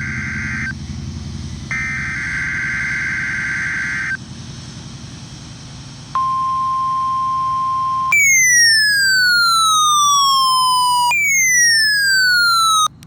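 NOAA Weather Radio test alert on a Midland ER10VP: the end of one burst of SAME digital header data and then a second one, a buzzing screech, followed about six seconds in by the steady weather-radio warning alarm tone for about two seconds. Then come two long falling siren-like sweeps, the second starting about eleven seconds in. All of it sits over a steady low rumble.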